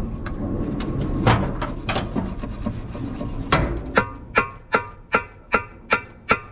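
Hammer striking metal on the rust-seized cylinder head of a Magnadyne flathead six, to break it free of its studs. A few irregular knocks come first, then from about four seconds in an even run of blows, about two and a half a second, each with a ringing tone.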